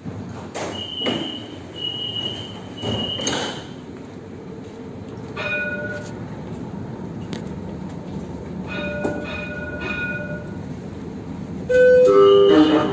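Alstom tram door signals: three steady high electronic beeps, then chime tones twice as a passenger steps aboard. Near the end, a loud whine with a wavering pitch sets in from the tram.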